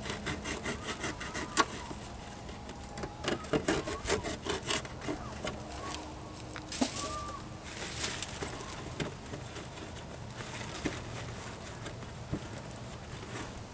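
Hand sawing or rasping on wood: two bouts of quick, repeated scraping strokes in the first five seconds, then quieter rubbing and a few knocks.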